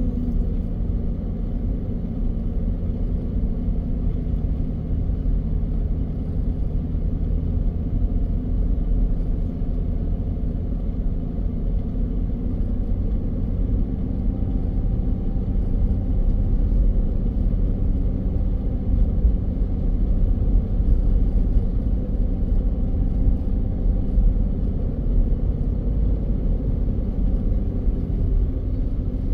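Steady low rumble of a car driving on a paved road, heard from inside the cabin, with a faint steady engine hum.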